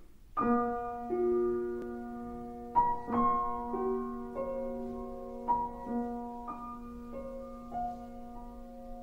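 Background music: slow, soft piano notes starting about half a second in, each struck note left to ring while the next ones sound.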